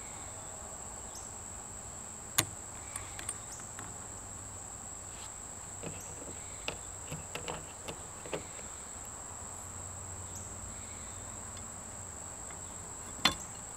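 Small clicks and taps of arrow components being handled and fitted onto a carbon arrow shaft resting on a pocket digital scale: a sharp click about two seconds in, a run of light ticks over the next several seconds, and another sharp click near the end. A steady high-pitched whine runs underneath.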